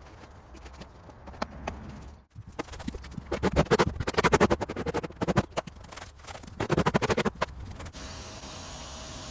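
Two runs of rapid scratching or scraping strokes. Near the end a steady spray hiss from the pressure washer begins.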